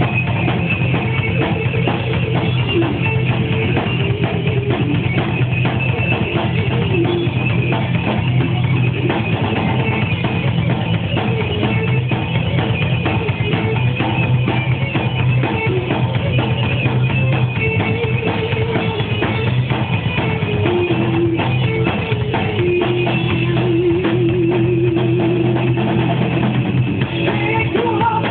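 Live band playing, the drum kit loudest, with steady bass and a guitar underneath.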